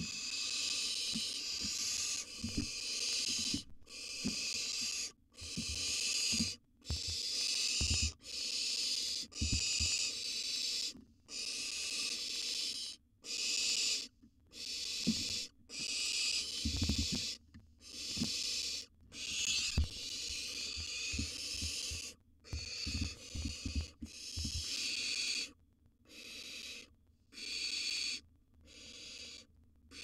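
Barn owl young giving their raspy hissing begging calls, one after another, each about a second long with short gaps between, as they wait to be fed. Soft low thuds come in among the calls.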